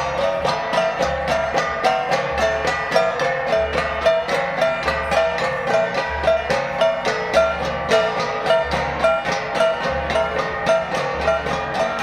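Percussive music: rapid, evenly spaced struck notes in a repeating pattern over a low beat that pulses about every second and a quarter.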